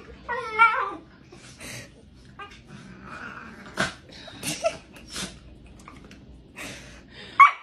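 A Shiba Inu and a tabby cat sparring: a short, wavering high-pitched cry at the start and another near the end, with short sharp snaps and huffs in between.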